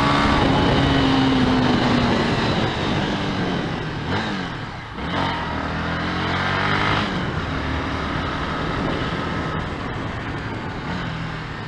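Honda CB Twister motorcycle's single-cylinder engine running under way, its pitch falling about two seconds in, then rising and falling again between about four and seven seconds as it accelerates and eases off.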